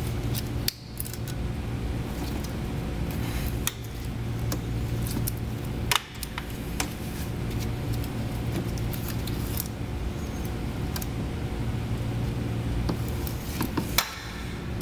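Scattered metallic clicks and clinks of hands and tools working under the hood as a serpentine belt is seated on its pulleys, over a steady low hum. The sharpest clicks come about a second in, about six seconds in and near the end.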